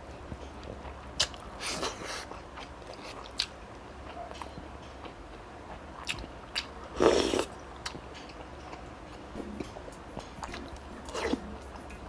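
Close-miked chewing and biting of food, with scattered small mouth clicks and smacks. A louder noise lasting about half a second comes about seven seconds in, just after a spoonful is lifted to the mouth.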